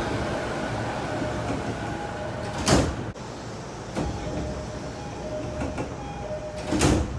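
Tokyo subway doors sliding, with a door chime of short repeated tones signalling that the doors are opening or closing. Two loud thuds land about 3 s and 7 s in.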